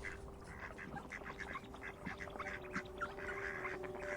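A flock of birds calling, many short overlapping calls, faint and distant, over a faint steady hum.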